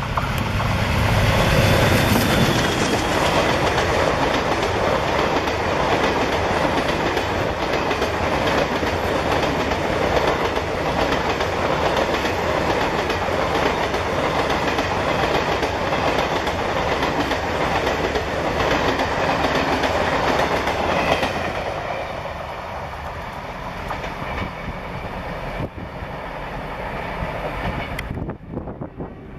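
An ALCO WDM3A diesel locomotive runs past at speed with its engine working hard. A long rake of passenger coaches follows, wheels clattering over the rail joints. The sound eases off as the last coaches go by.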